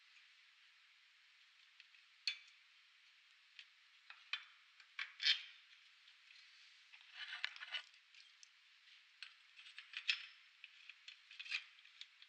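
Metal clinks and scrapes as a coil-spring strut is handled and seated in a spring compressor's jaws: a scattering of sharp clicks, with a short run of scraping about seven seconds in.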